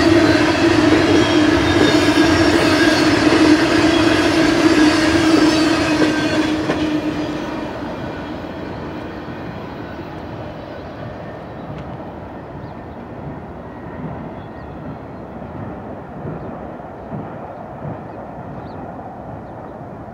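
Double-stack intermodal freight cars rolling past at speed, steel wheels on rail, with a steady ringing tone. The sound dies away over a couple of seconds from about six seconds in, as the end of the train passes and recedes, leaving only a faint distant rumble.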